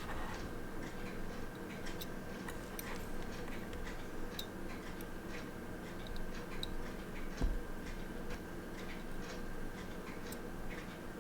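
Scattered light clicks of tweezers and small watch parts being handled while a quartz watch's electronic module is swapped, with a soft thump a little past halfway, over a steady faint hum.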